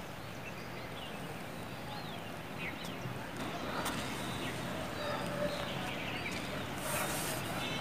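Quiet outdoor ambience with a few short bird chirps, and a brief rush of hiss near the end.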